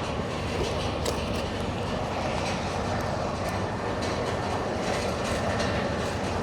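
Machinery running steadily: a constant mechanical rumble and hiss with a low hum underneath and a few faint ticks.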